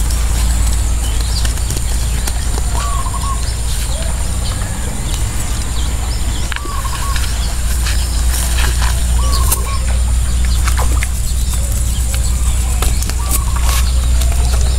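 A cast net and climbing perch being handled on wet ground: scattered sharp clicks and slaps, over a steady low rumble. A bird's short wavering call repeats four times, about three to four seconds apart.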